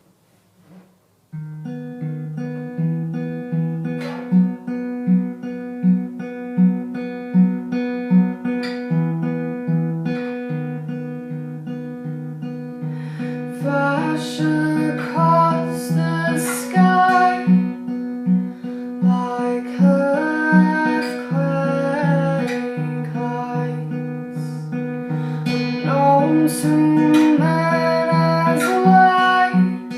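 Acoustic guitar playing a song intro. It comes in about a second in with a steady, repeating low note pattern, and grows fuller with higher melodic notes about halfway through.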